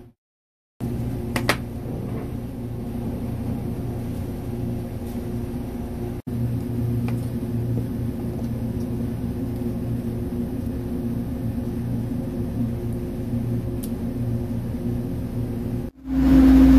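Steady low machine hum with a background noise floor, starting after a brief silent gap. A couple of faint clicks come about a second and a half in.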